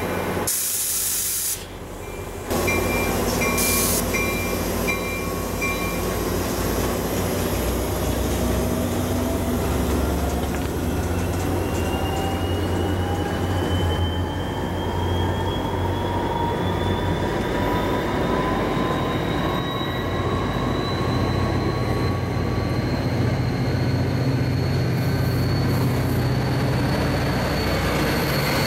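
NJ Transit push-pull commuter train rolling past at close range: steady wheel and rail noise, with a high-pitched whine that rises slowly in pitch as the train gathers speed. A grade-crossing bell dings about twice a second in the first few seconds. Near the end the low engine sound of the EMD Geep diesel pushing at the rear comes up.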